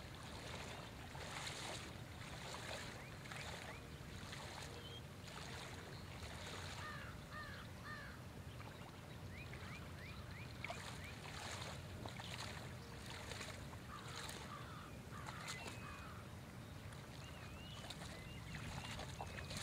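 Small waves lapping on a stony shore over a low steady rumble, with birds calling now and then in short chirps.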